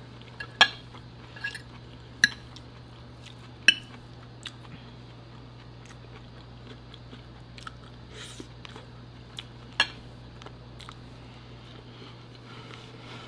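Metal fork clinking and scraping against a ceramic dinner plate, with about four sharp clinks spread out and smaller taps between, and quiet chewing of food.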